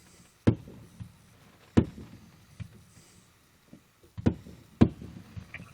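Fireworks going off: four loud bangs at uneven intervals and a fainter one, each trailing off briefly after the hit.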